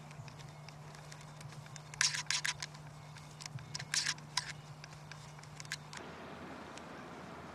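Plastic test-lead cable reel of an earth tester spinning on its handle as the red lead pays out, giving quick clicks and rattles in two clusters, about two and about four seconds in.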